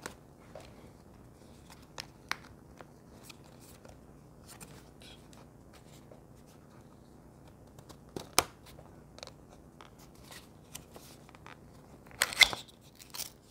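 Paper and cardboard packaging of a small product box being handled: scattered light clicks and taps, two sharper ticks, and a short burst of paper tearing near the end as the paper seal strips are pulled off.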